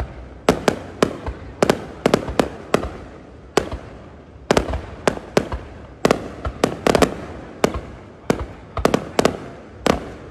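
Aerial fireworks shells bursting in a rapid, irregular string of loud bangs, often two or three a second, each trailing off in a short echo, with a couple of brief lulls.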